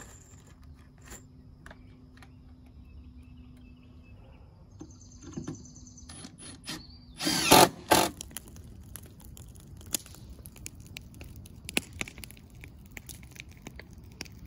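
Cordless drill running in short bursts, the loudest about seven seconds in, followed by scattered sharp clicks.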